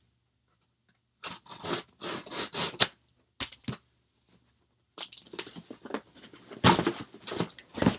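Cardboard shipping box being opened: packing tape slit and torn, cardboard flaps scraped and pulled. Starts about a second in as bursts of scraping and ripping with a few sharp knocks, busiest in the second half.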